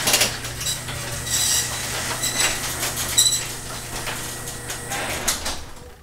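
LiftMaster garage door opener motor running as the door closes: a steady hum with clinks and rattles from the door, stopping about five seconds in.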